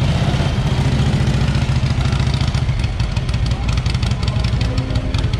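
Vintage motorcycle engine idling steadily, with a rapid, even low pulse from its firing strokes.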